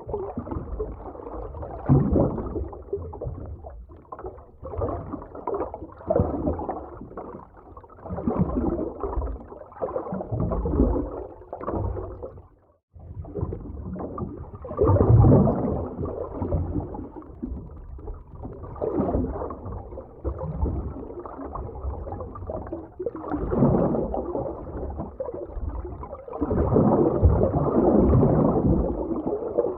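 Underwater ocean ambience: muffled, low water surging and gurgling in irregular swells that rise and fall every second or two. The sound breaks off briefly about thirteen seconds in.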